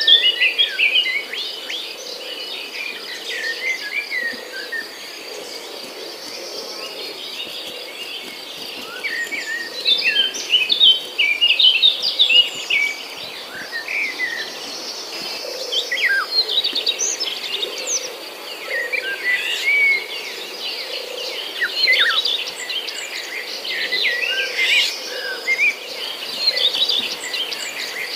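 Birds chirping and twittering over a steady, high insect trill like crickets.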